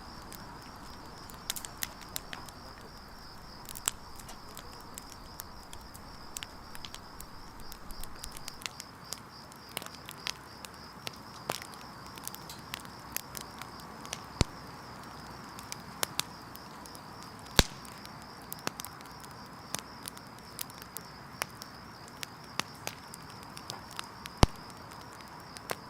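Wood campfire burning: logs crackling and popping irregularly, several small pops a second with a few sharper, louder snaps.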